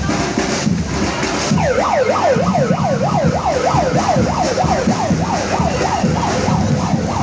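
Electronic siren yelping, a fast rising-and-falling wail repeating about three times a second, starting about one and a half seconds in, over street traffic noise.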